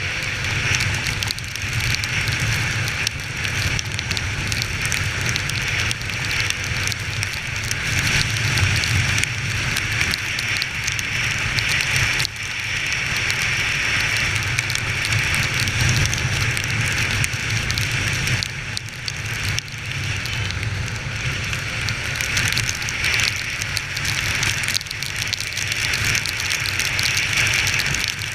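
Steady hiss of heavy rain and riding noise on a moving Honda XR 250 Tornado, with its single-cylinder four-stroke engine running low underneath.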